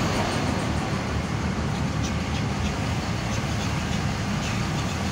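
Steady engine and road noise heard from inside a pickup truck's cab as it drives slowly along a street.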